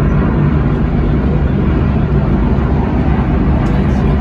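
A huge arena crowd roaring, loud and steady, a dense rumbling wall of noise.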